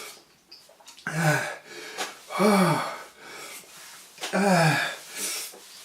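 A man groaning three times through breathy exhales, each groan rising and then falling in pitch, in pain from the burn of a ghost pepper he has eaten.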